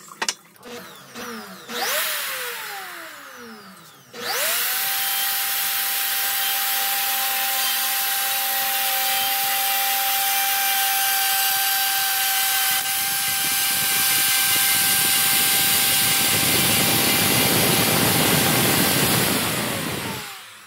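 A corded plunge router starts up with a quick rising whine and runs at a steady high pitch while cutting along the edge of a wooden board. The cutting noise grows louder in the second half, and near the end the router is switched off and winds down. Before it starts, about two seconds in, a power tool motor winds down with a falling whine.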